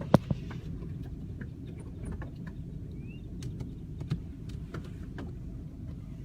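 Steady low rumble of a car, with scattered sharp clicks and taps; two loud clicks come right at the start. A short faint rising chirp sounds about three seconds in.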